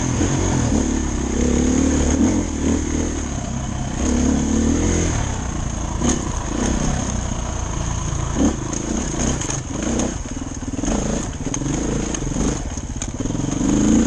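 Dirt bike engine revving up and falling back again and again as the throttle is worked over rough trail. Through the second half, a run of sharp knocks and clatter cuts across it.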